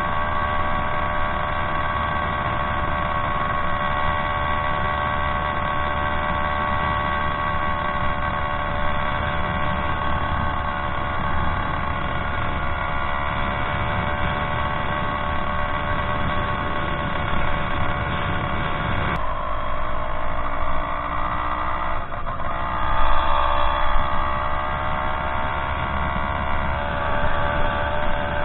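Zeda Dio 80cc two-stroke motorized-bicycle engine running at a steady speed. About two-thirds of the way through, the engine note shifts and wavers, then briefly gets louder.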